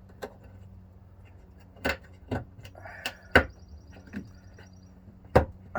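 Sharp plastic clicks and knocks as a 2018 Ford Escape's interior trim panel and its clips are pushed back into place: a handful of separate knocks, the loudest about three and a half seconds in and near the end.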